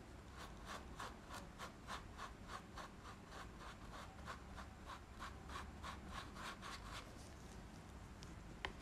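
Paintbrush scrubbing paint onto a canvas board in short quick strokes, about three or four a second, which stop about seven seconds in. A single sharp click near the end.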